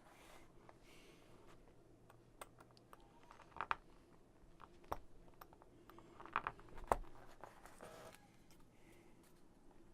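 Scattered light clicks and taps of small laser-cut MDF kit pieces being handled and dry-fitted together, loudest around the middle.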